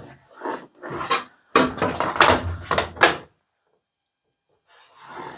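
Sharpie marker rubbed back and forth along a metal straight edge on a van's painted steel panel, marking a cutting line: a run of short, quick rubbing strokes for about three seconds, a pause, then strokes again near the end.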